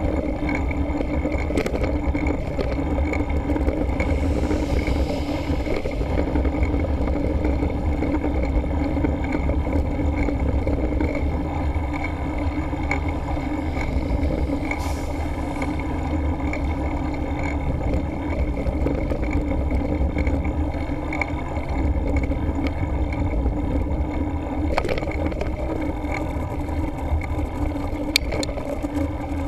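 Steady wind rumble on the microphone of a camera mounted on a mountain bike riding along a road, with road noise from the ride and a few sharp clicks.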